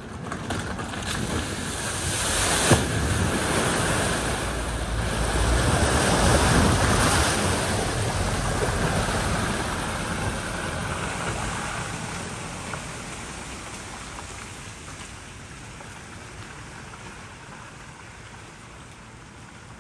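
Saloon car driving through a flooded ford, its wheels throwing up spray: a rushing wash of water that builds over the first few seconds, peaks, then fades slowly. A single sharp knock about three seconds in.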